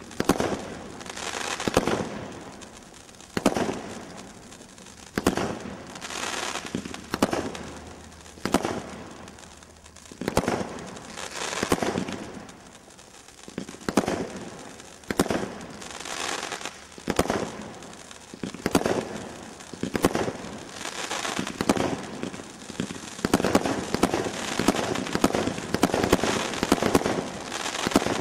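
Category 3 combination Roman candle firing shot after shot: a sharp launch thump about every second, each followed by the stars bursting and crackling. The shots come faster and closer together near the end.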